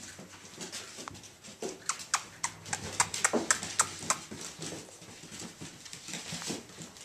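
Irish Jack Russell Terrier puppy playing with a tennis ball: a quick run of short, sharp clicks and squeaks between about two and four seconds in, loudest around three seconds in.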